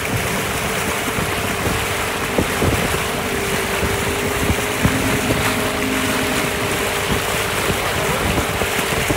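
Small outboard motor driving a wooden marsh boat at speed, a steady engine note under heavy wind noise on the microphone and water rushing past the hull.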